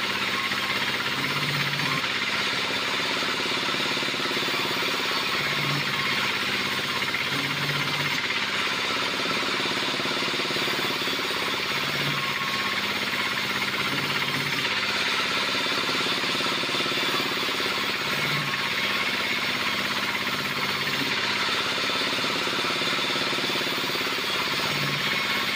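Band sawmill running steadily while its blade cuts lengthwise through a log fed along the table, a continuous mechanical drone with no let-up.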